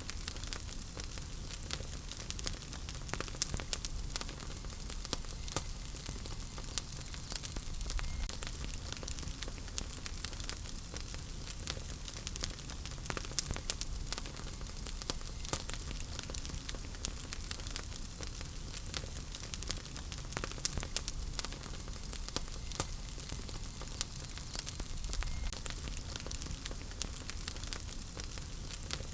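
Wood fire burning in a fireplace: a steady low hiss and rumble of the flames with frequent irregular sharp crackles and pops from the burning logs.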